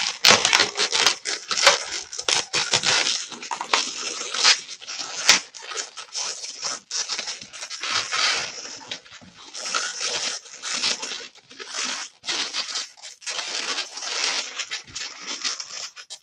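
Latex 260 modelling balloons squeaking and rubbing against one another as a balloon bow tie is wrapped and twisted into place on a balloon animal. The squeaks and rubs come in a quick, irregular run.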